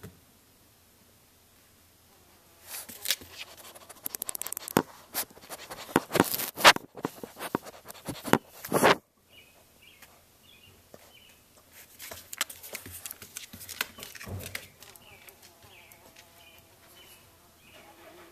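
A French bulldog puppy's claws scratching and scrabbling on a wooden surface right against the camera: a run of rapid scratches and knocks that lasts several seconds, followed by fainter scattered scratching and clicks.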